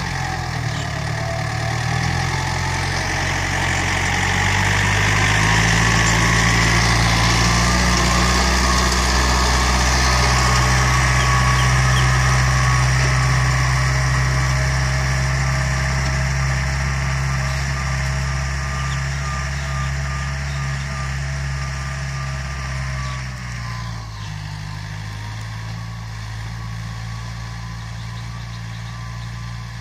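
Yanmar EF454T tractor's diesel engine running steadily while pulling a disc plough through the soil. It grows louder as the tractor passes close, then drops away sharply about three-quarters of the way through as the tractor moves off.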